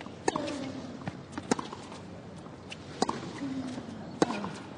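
Tennis rally: four sharp racket-on-ball strikes, roughly one every one and a half seconds. A short falling grunt follows some of the hits.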